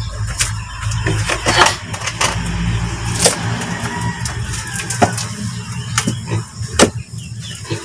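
A hoe chopping into and scraping packed dirt, in irregular sharp strokes roughly once a second, over a steady low hum.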